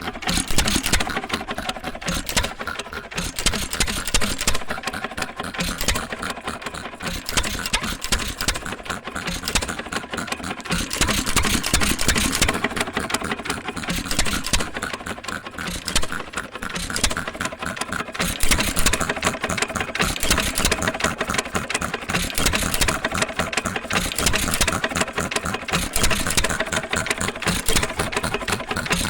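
1916 Associated 2-1/4 HP single-cylinder hit-and-miss engine running its air compressor unit, with a steady, rapid mechanical clatter of repeated strokes.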